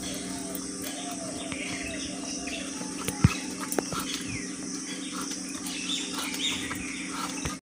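Rohu fish being scaled against a boti blade: scattered scraping clicks as the scales come off, with a sharp knock about three seconds in. Birds chirp throughout over a steady low hum.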